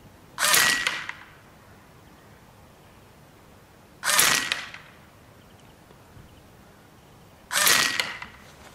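PCP air rifle firing three single shots about three and a half seconds apart, each a sharp crack with a short fading tail.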